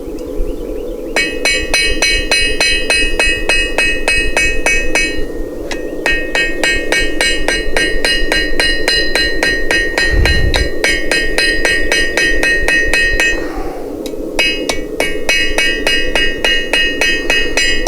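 Hammer blows on hot steel over an anvil, coming fast and regular at about three to four strikes a second, each with a bright metallic ring. The hammering comes in three runs, broken by two short pauses. This is the stem of a forged leaf being drawn out from square steel bar, with a steady rushing noise underneath.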